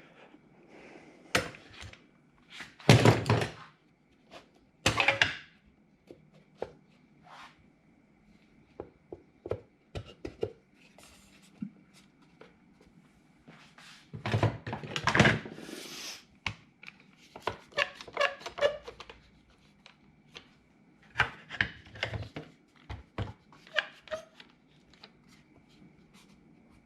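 Wooden knocks, thunks and scraping as Baltic birch plywood parts are handled and fitted together, coming in uneven clusters with a few louder knocks.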